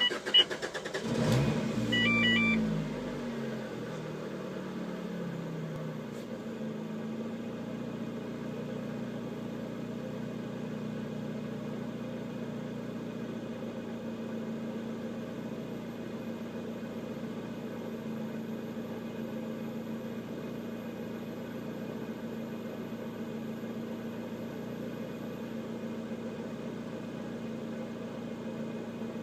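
Lotus Exige's 1.8-litre four-cylinder engine starting: a short flare of revs about a second in that falls away over the next few seconds, then a steady, even idle.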